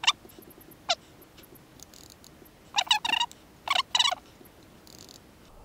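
Electronic beeping from the Aneng AN8008 multimeter as its buttons are pressed: three very short chirps in the first second, then two longer, wavering beeps about three and four seconds in.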